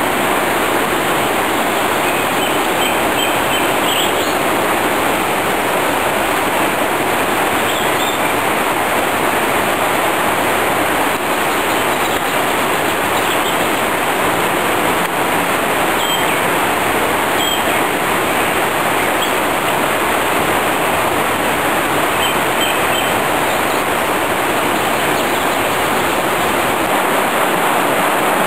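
Flood-swollen mountain stream rushing over rocks: a loud, steady rush of water, running high after flooding. A few faint high chirps come through now and then.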